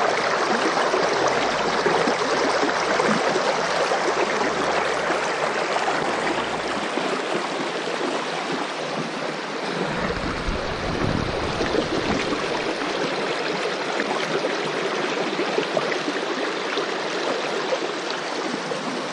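Water rushing over a shallow rocky riffle on a small river, heard close from an inflatable boat running down it: a steady, loud rush, with a brief low rumble about ten seconds in.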